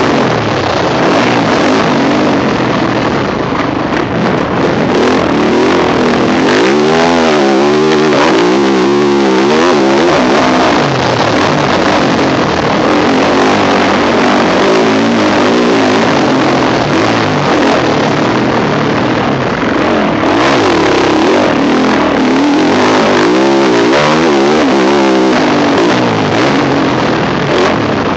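Yamaha YZ450F four-stroke single-cylinder motocross engine, heard from the rider's helmet camera, running loud under hard riding, its pitch rising and falling as the throttle opens and closes.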